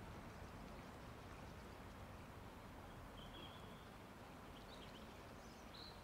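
Quiet outdoor ambience, near silence, with a few faint bird chirps in the second half.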